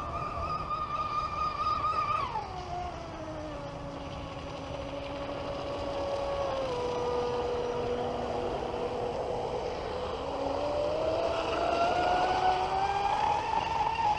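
Traxxas M41 Widebody RC boat's brushless electric motor whining as it runs across the water, over a hiss of hull and spray. The whine falls sharply in pitch about two seconds in, stays low through the middle, then climbs again over the last few seconds.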